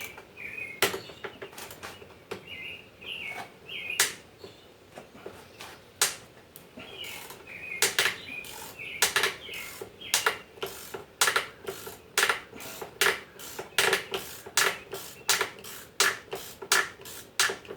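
Sharp metal clicks and taps. They are scattered at first, then settle into an even rhythm of about three a second from about halfway through, while a stuck Torx screw is worked loose.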